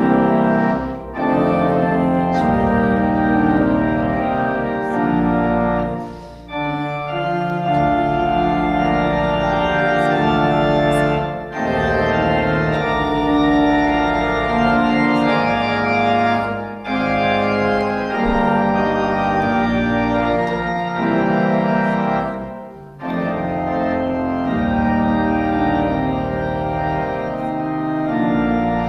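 Organ playing a hymn tune in sustained chords, phrase by phrase, with a brief break between lines about every five to six seconds.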